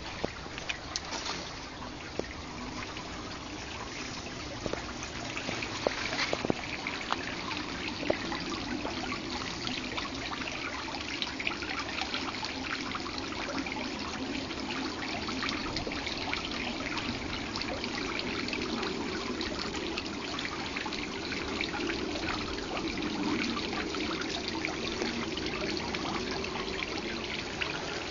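Garden water feature trickling and splashing, a steady sound of running water that grows a little louder over the first few seconds, with a few sharper clicks.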